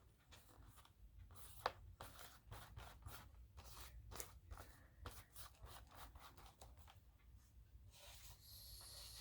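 Faint rustling and light ticks of paper pieces being handled, with one sharper click a little under two seconds in.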